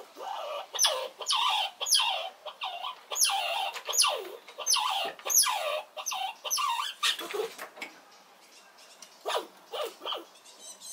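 Red squirrel squealing: a rapid string of loud, sharply falling squeaks for about six seconds, then a short pause and a few more squeaks near the end. It is the loud alarm and defence racket a red squirrel makes when another squirrel approaches.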